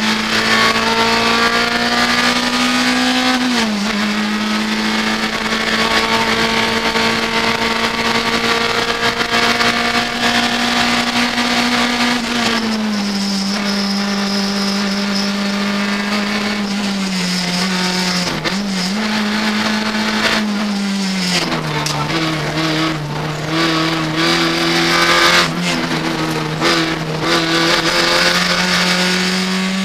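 Renault Clio RS N3 rally car's four-cylinder engine at high revs, heard from inside the cabin: the pitch rises, drops sharply at a gear change about four seconds in, holds, then falls and climbs again as the car lifts off and reaccelerates through bends. Short sharp noises break in now and then in the second half.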